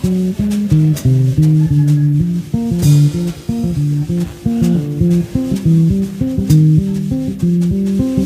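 Instrumental music: guitar and bass playing quick runs of plucked notes, with occasional sharp clicks.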